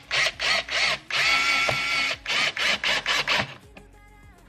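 Cordless drill/driver driving a screw into a wooden cart frame, the motor running in quick short pulses with one steadier whining stretch about a second in, then stopping abruptly a little before the end.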